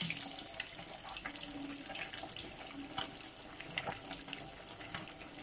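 Besan-battered fish deep-frying in hot oil in a karahi: a steady sizzle with scattered crackles and pops.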